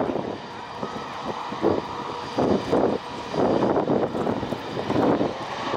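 Boeing 777 jet engines running at low power as the airliner moves along the runway: a steady whine over a rumble that rises and falls in gusts.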